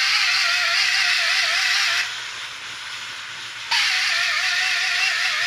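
Loud hissing with a wavering whistle-like tone under it. It stops about two seconds in and starts again sharply almost two seconds later.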